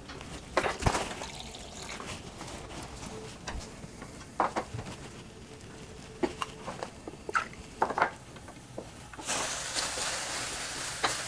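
Sliced mushrooms sizzling faintly in a hot stainless-steel pan under a glass lid, cooking without oil, with scattered small clicks. About nine seconds in the lid comes off and the sizzle turns suddenly loud and hissing as a spatula stirs the mushrooms.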